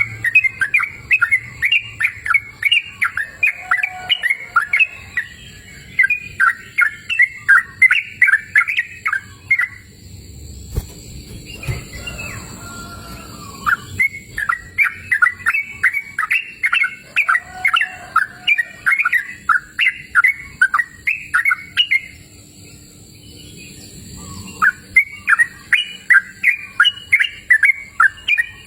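Yellow-vented bulbul (trucukan) singing in three bouts of quick, sharp, repeated chirping notes, with two short pauses between them.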